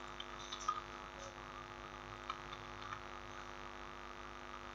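Faint, steady electrical mains hum with many even overtones, with a few faint computer-mouse clicks.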